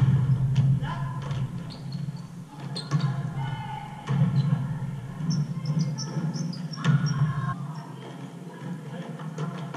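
Indoor basketball play over background music: sneakers squeak on the hardwood court in short high chirps, and the ball bounces now and then.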